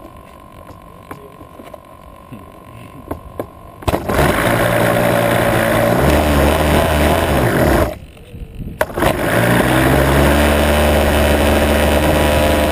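A model airplane's small glow engine is started: a few light ticks, then about four seconds in it catches and runs loud with its propeller spinning. It cuts out about eight seconds in, picks up again a second later, and rises in pitch as it speeds up.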